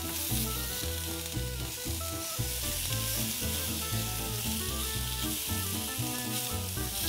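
Oiled fennel wedges sizzling as they go into a hot grill pan: a steady frying hiss. Background music with a slow, stepping bass line plays alongside.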